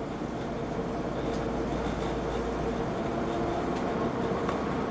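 A 2014 Ford Transit Connect's 1.6-litre EcoBoost four-cylinder running with a steady low hum and a faint tone, growing slightly louder.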